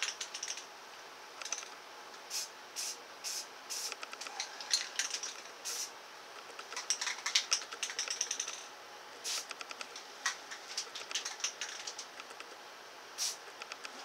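Tan spray paint rattle can used in short, irregular bursts: quick clicks and spits with a few brief hisses, the nozzle giving a lot of spatter.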